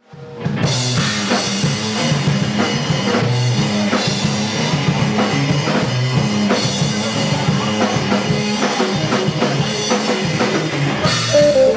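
Live instrumental rock: a drum kit keeps a steady beat under a repeating low guitar riff. It fades in at the start.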